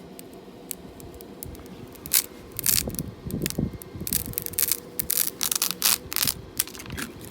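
Vinyl decal's paper backing and transfer tape being peeled and handled: irregular crinkling and tearing rustles, with a faint steady hum underneath.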